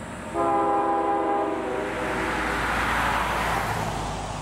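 Locomotive air horn on an approaching CSX freight train, one blast about a second and a half long of several notes sounding together, starting about half a second in. A rushing noise then swells and fades over the next two seconds.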